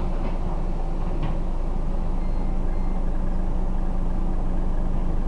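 Scania Omnidekka double-decker bus engine running steadily with a low hum, heard from inside the passenger saloon. Two faint short high beeps sound about two seconds in.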